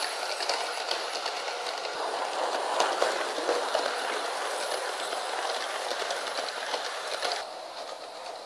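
Model electric train coaches rolling fast over sectional track on a wooden floor, a steady rattling rumble with wheels clicking over the rail joints. The noise drops suddenly near the end.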